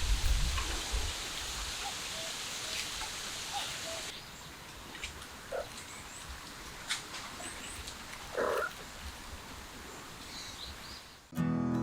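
A few short, faint cat mews over a steady hiss, the clearest about two thirds of the way in; acoustic guitar music starts just before the end.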